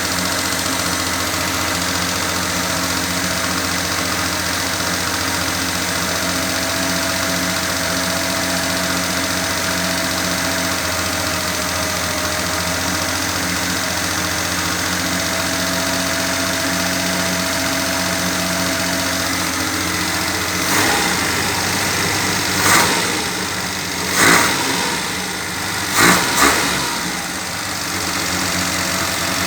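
Car engine idling steadily, then blipped on the throttle four times in quick succession, briefly louder each time, in the last third.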